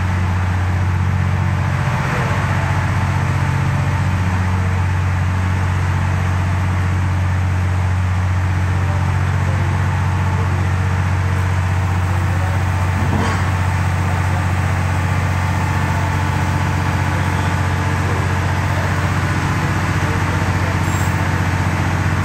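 Cat 992 wheel loader's diesel engine running with a steady low drone as the loader moves up to a dragline bucket and pushes against it. A single knock about halfway through.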